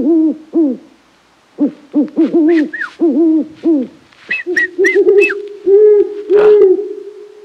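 Owl-like hooting: quick runs of short hoots, each rising and falling in pitch, then a long held, wavering hoot with a few higher chirps over it near the end.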